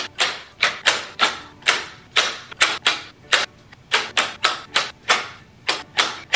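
Long-bladed garden shears snipping through artificial flower stems again and again, a sharp click with each cut, roughly three a second.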